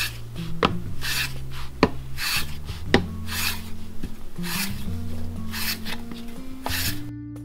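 Japanese hand plane (kanna) planing a wooden board: a run of shaving strokes, about one a second, with a few sharp knocks between them. Guitar music plays underneath.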